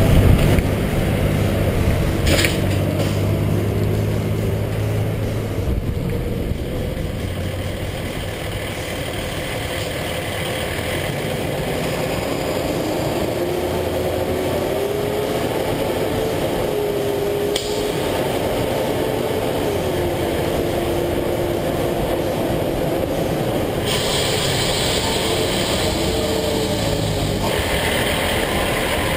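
Kenworth T300 tri-axle dump truck on the move, heard from a camera mounted beside its rear wheels: engine running with tyre and road noise. The noise shifts abruptly several times.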